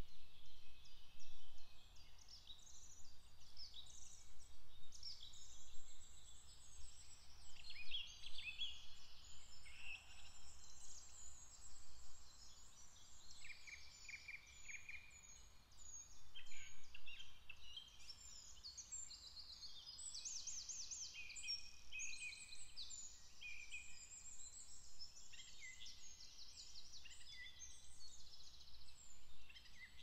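Several songbirds singing and calling over one another in woodland, a continuous mix of chirps, whistles and trills, with a fast trill about two-thirds of the way through.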